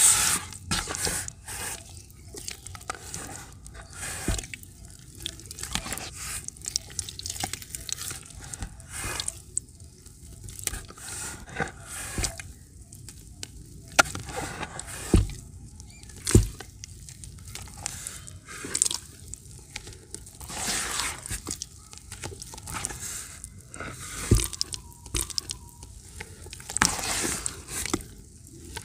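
Hands squeezing and kneading thick grey dirt-and-water slurry in a bucket: wet squelching and sloshing with scattered sharp plops. Near the end, slurry lifted in the hands pours back into the bucket.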